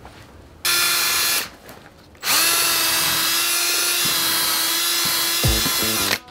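Milwaukee cordless drill boring into timber: a short burst of under a second, then after a pause a steady run of about four seconds at constant speed.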